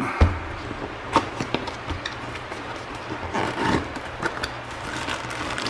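Cardboard box being opened by hand: the outer sleeve slid off and the flaps pulled open, with scattered taps and scrapes of cardboard and a dull thump just after the start.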